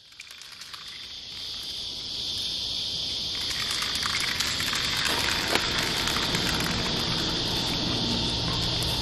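A steady, high-pitched insect chorus fades in over the first couple of seconds. A low rumble builds underneath from about three seconds in.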